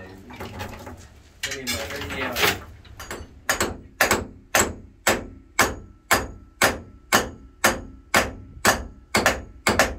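A hammer striking hard and steadily, more than a dozen blows at about two a second, beginning about three seconds in. Each blow leaves a short ring.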